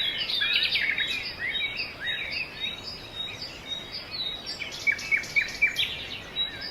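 Small songbirds chirping and warbling, several overlapping calls in quick rising and falling notes, with a few sharper, louder chirps about five seconds in.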